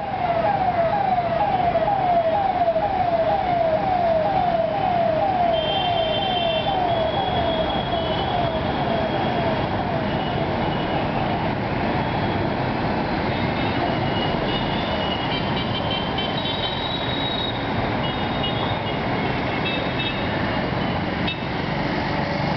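Street traffic noise with a siren yelping in quick falling sweeps, about two or three a second, that fade away over the first ten seconds. Later, short high beeping tones come and go over the traffic.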